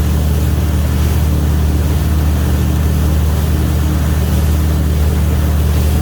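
Towing boat's engine running steadily under way for wakesurfing, a constant low hum under the rush of water and wind.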